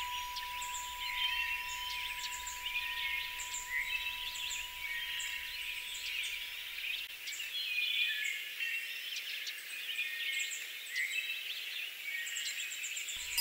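A chorus of songbirds, many overlapping chirps, trills and whistles, with a steady high tone underneath.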